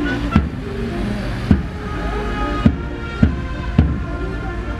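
Brass marching band playing a march, with held brass and tuba notes and strong bass-drum beats about once a second, over a steady low rumble.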